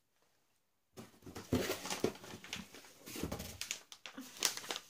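Gift wrapping paper crinkling and rustling as a wrapped present is handled and opened, starting about a second in after a near-silent moment.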